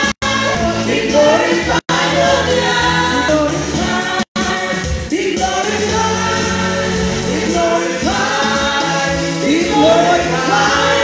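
Gospel praise singing: a lead singer and backing singers on microphones, loud over steady instrumental backing. The sound cuts out completely for an instant three times in the first half.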